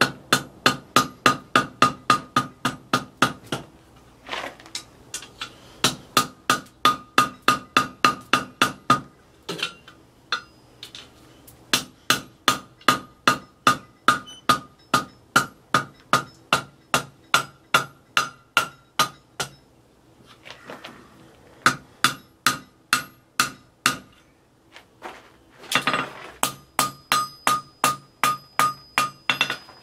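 Hand hammer striking hot steel on the horn of an anvil in quick runs of about four blows a second, with short pauses between runs, while the anvil rings between blows. The smith is working the punched eye of a bottle opener round over the horn and knocking its corners back.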